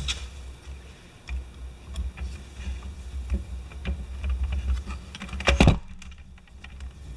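Small plastic and metal parts being handled on a workbench: scattered light clicks and taps, with one louder knock about five and a half seconds in.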